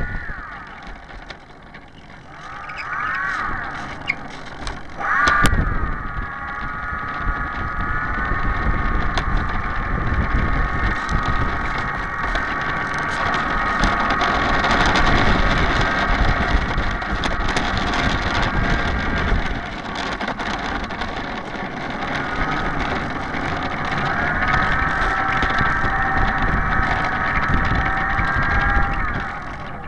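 Turnigy 50-55 brushless electric motor spinning a 15x10 APC propeller on a large RC P-51 Mustang. Its whine rises and falls three times as the throttle is blipped, then holds steady for a long stretch, eases off, and comes back up near the end. Low rumble of wind on the onboard microphone.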